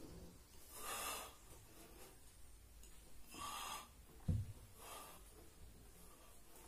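A man breathing hard through sit-ups, with a forceful breath about every two and a half seconds. There is one soft thump about four seconds in.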